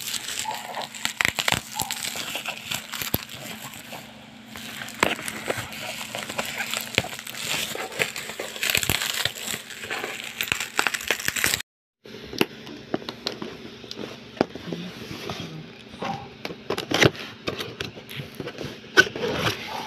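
Bubble wrap being pulled and crumpled off a cardboard microphone box, crinkling and crackling with many short clicks. It cuts out briefly about twelve seconds in, then goes on more quietly.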